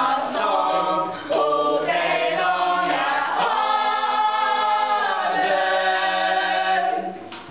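A group of voices singing together a cappella, ending on long held notes in the second half that fade near the end.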